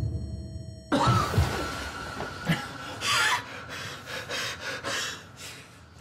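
A man gasping and breathing hard in pain, in short irregular bursts, with a sudden loud rush of noise about a second in. Faint dramatic music runs underneath.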